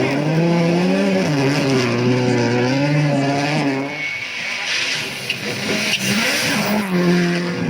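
Rally car engine pulling hard on a snow stage, its pitch climbing and dropping back through several gear changes. About four seconds in, the engine note fades under a hiss of tyres and spray, then picks up again near the end.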